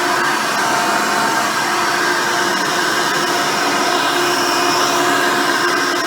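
Hoover Decade Elite Soft & Light upright vacuum cleaner, fitted with a single-row brush roll, running steadily while cleaning.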